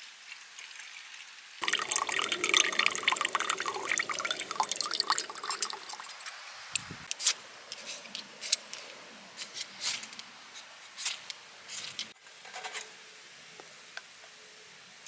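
Liquid fuel poured from a clear bottle into a small spirit burner, splashing and trickling for about four seconds. A ferro rod is then scraped over the burner in a string of short, sharp strikes while the spirit fails to catch in the cold air.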